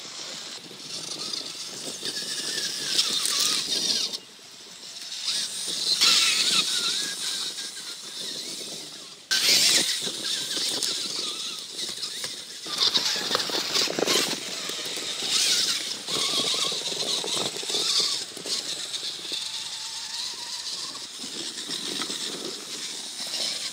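An Axial XR10 RC rock crawler's two axle-mounted electric motors and gearboxes whining, rising and falling in pitch with the throttle, while the tyres and chassis knock and rattle over dirt and rocks. A sudden louder burst comes about nine seconds in.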